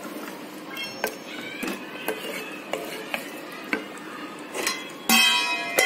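A black spatula stirring and scraping thick minced-mutton kheema in a pressure cooker pot, with small knocks against the pot's side. Near the end a short, loud ringing tone comes in suddenly.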